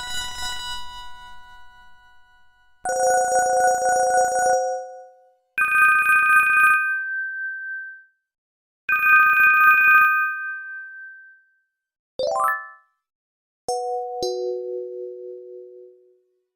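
A run of short electronic Panasonic phone ringtones and alert tones, each separated by a brief silence: a fading chime first, then three clean beeping tones, a quick rising sweep, and a falling two-note tone near the end.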